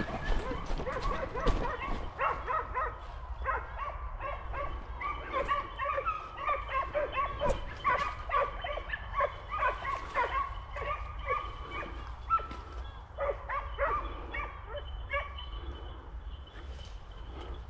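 Pack of hunting dogs baying and barking without a break, several voices overlapping, as they work a wild boar.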